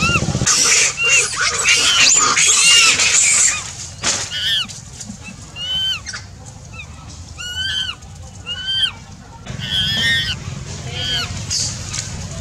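A pet monkey's repeated short, high-pitched squealing calls: a dense, loud run in the first few seconds, then separate calls about every half second to second.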